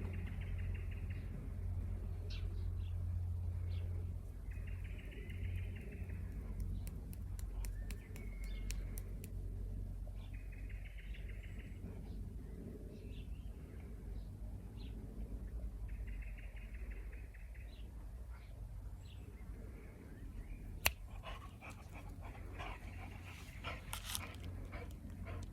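A squeaky ball squeaking as a young boxer dog chews it: about five drawn-out squeaks, each about a second long, with pauses of a few seconds between them. A few sharp clicks come near the end.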